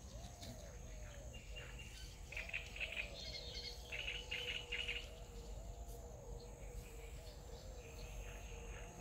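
Birds calling outdoors: a run of quick chirps in the middle, over soft low rising-and-falling calls repeated about once a second.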